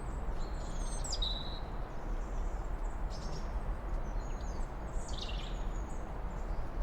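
Small birds chirping in short high bursts every few seconds over a steady low outdoor rumble.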